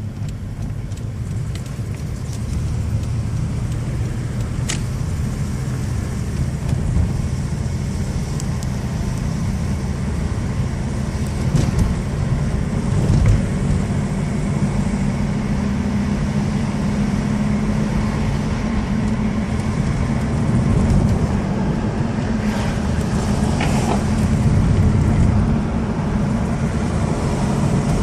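1993 Toyota Camry V6 being driven, engine and road noise running steadily. The engine has a dead cylinder from a bad fuel injector, with dirty injectors and bad spark plug wires, so it is misfiring and short of power.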